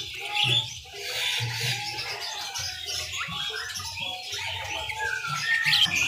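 Many caged birds chirping and calling at once, short overlapping chirps with no one bird standing out.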